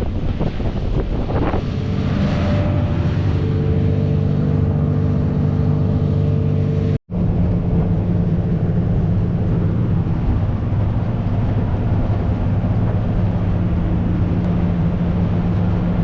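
A boat's engine running steadily at cruising speed, with wind buffeting the microphone in the first few seconds. The sound breaks off for an instant about seven seconds in, then the same steady engine hum carries on.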